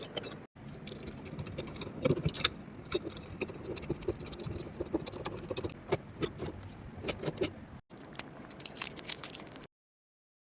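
Light metallic clicking, rattling and scraping of door-lock hardware being handled and fitted, a busy run of small knocks and jingles. It is cut abruptly to silence twice: just after the start and again in the last second or so.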